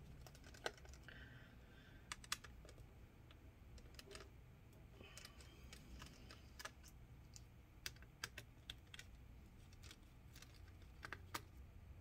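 Faint, scattered light clicks and taps of a small screwdriver and tiny screws being worked at a laptop's battery, about a dozen in all at irregular spacing over near silence.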